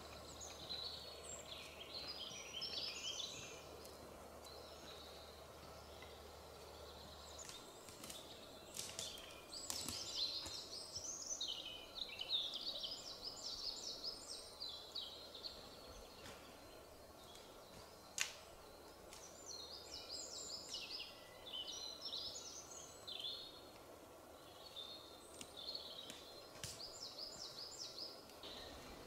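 Small songbirds singing in the forest, in quick repeated high warbling phrases every second or two. A few sharp snaps of twigs under a walker's boots cut in, the loudest one about two-thirds of the way through.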